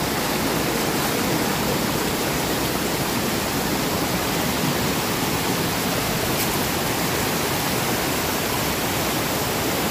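Waterfall and brook water rushing steadily, with the spring flow running high.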